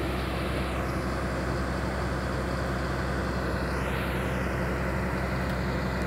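Diesel engine of a Caterpillar tracked excavator running steadily with an even low drone, working to lift a pickup out of the river.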